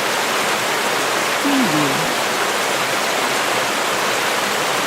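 Flowing river water rushing steadily, an even, unbroken wash of water noise.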